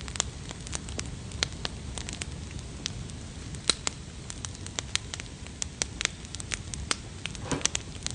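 Wood campfire crackling, with irregular sharp pops and snaps over a low steady rush of burning.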